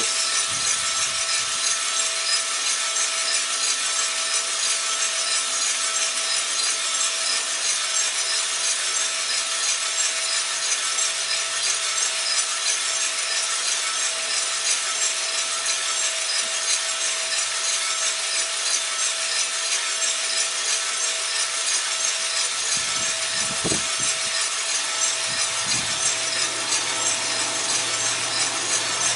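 Cormorant CR600 gas drum coffee roaster running mid-roast, around the end of the drying phase: beans tumbling with a rasping rustle in the turning drum over a steady hiss of the fan and burner, with a faint steady hum. A couple of soft knocks come near the end.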